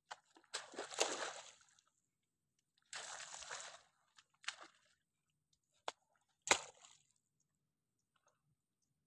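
A shovel digging into wet mud: two longer squelching, sloshing scoops, then several sharp strikes of the blade, the loudest about six and a half seconds in.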